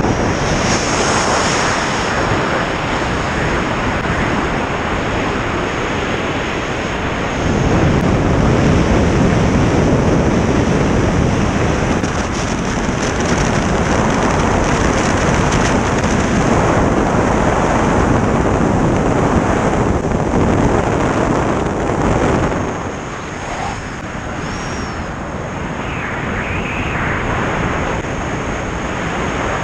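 Rushing airflow buffeting a helmet camera's microphone during a wingsuit flight, a loud steady roar of wind noise that grows louder about seven seconds in and eases somewhat about twenty-two seconds in.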